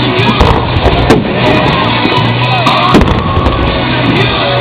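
Music playing, with several sharp firework bangs cutting through it, the loudest about a second in and again about three seconds in.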